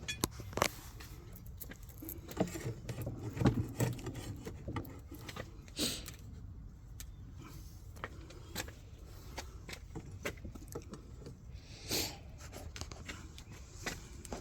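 Irregular clicks, knocks and scrapes of beehive frames and hive parts being handled and pulled apart, with a run of louder knocks a few seconds in.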